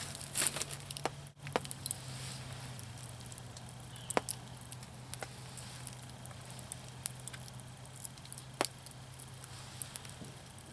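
Campfire crackling, with a scattered handful of sharp pops and clicks, over a steady low hum.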